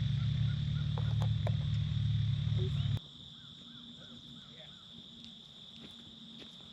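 Pickup truck driving: a steady low engine and road rumble that cuts off abruptly about three seconds in. After that comes quiet outdoor ambience: a steady high-pitched insect drone with a few faint chirps.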